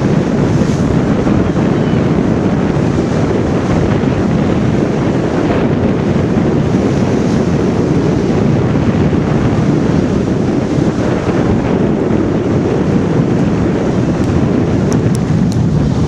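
Wind buffeting the microphone: a loud, steady, low rush of noise.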